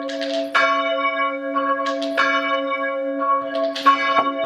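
Church bell being chimed from its rope, the clapper striking three times about a second and a half apart, with the bell's hum ringing on between strokes.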